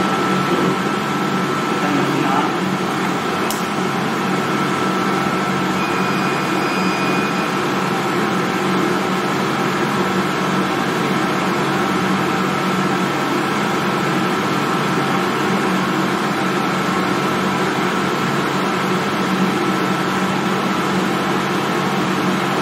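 MTAB CNC milling machine just powered on, giving a steady machine hum with a thin, high, constant whine while its controller boots. A faint short tone sounds about six seconds in.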